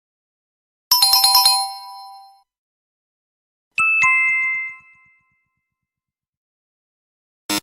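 Chime sound effects: a quick run of about six ringing bell-like notes about a second in, then a two-note falling chime (ding-dong) near four seconds, each ringing out. A short buzzy electronic tone starts just before the end.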